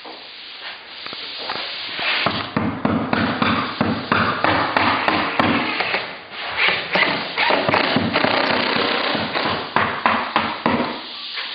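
Irregular knocking and tapping of tools working on a window frame while screws are set through the side jamb. The knocks come thick from about two seconds in until near the end.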